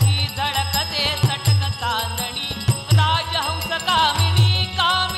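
Live langar folk song: a man's ornamented singing over a hand-played barrel drum beating a steady rhythm, with small hand cymbals jingling.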